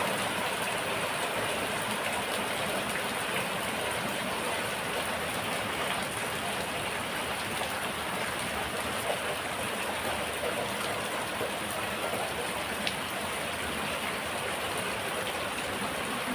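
Rain falling steadily: an even, unbroken patter.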